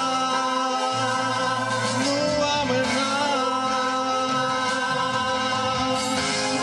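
A mixed group of men and women singing a hymn together into microphones, holding long notes over a steady accompaniment.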